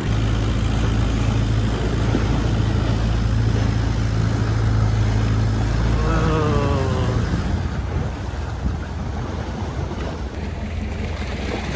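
Long-tail boat engine running steadily under way, with wind on the microphone and water rushing past the hull. About six seconds in, the engine note falls and the low hum drops away as the boat slows.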